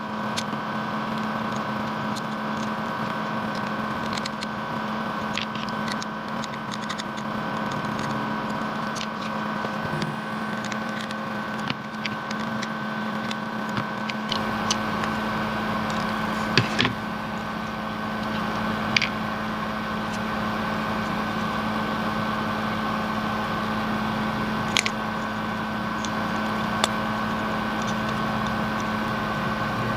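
A steady hum with a few faint fixed tones, broken now and then by sharp small clicks and taps, such as plastic parts or tools being handled.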